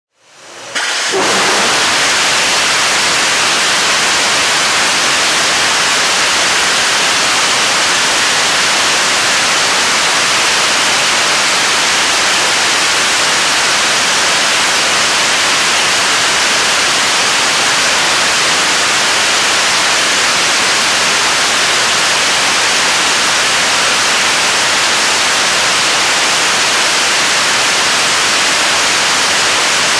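Korean launch vehicle's 7-tonne-class third-stage liquid-fuel rocket engine (kerosene and liquid oxygen) firing on a test stand during a long-duration hot-fire test. Its exhaust makes a loud, steady rushing noise with no pitch or rhythm, rising to full level within the first second and then holding even.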